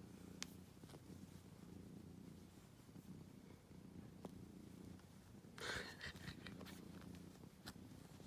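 Domestic cat purring steadily and faintly while being stroked, with a brief rustling noise about five and a half seconds in.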